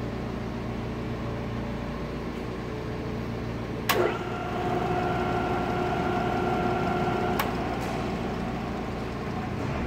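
Clausing 2274 drill press's three-phase motor is clicked on at its switch about four seconds in and runs with a steady whine. About three and a half seconds later another click cuts the whine off. A low steady hum runs underneath throughout.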